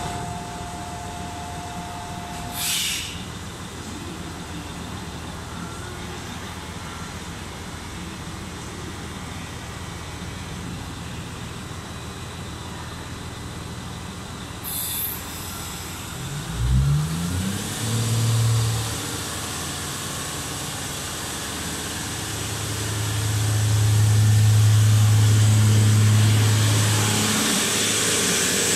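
JR Central HC85 series hybrid diesel train pulling away: short hisses of air release, then the engine picks up with a rising pitch and runs loud and steady at a low hum while the train gathers speed, rolling noise growing near the end.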